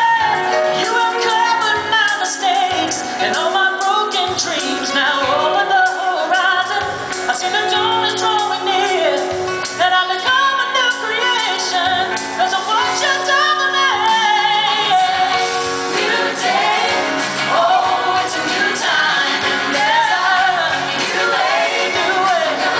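Live contemporary gospel song: male and female vocalists singing through microphones over steady instrumental accompaniment with a beat.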